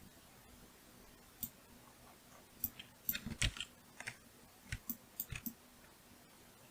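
Irregular clicks from a computer mouse and keyboard, about a dozen of them, bunched in the middle of the stretch.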